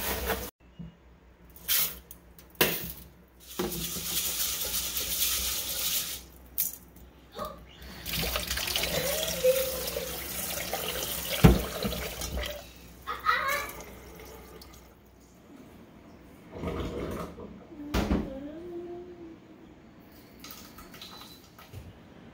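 Kitchen tap running into a rice cooker's inner pot in a stainless steel sink as rice is rinsed, in two spells, the second longer. Short knocks of the metal pot against the sink and rice being stirred by hand come between the spells.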